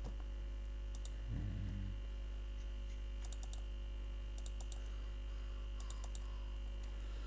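Computer mouse clicks in short pairs and small clusters, like double-clicks, coming every second or so, over a steady low electrical hum.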